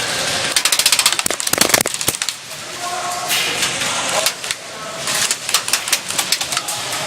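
Airsoft gun firing two rapid full-auto bursts of sharp clicks, the first about half a second in and the second about five seconds in.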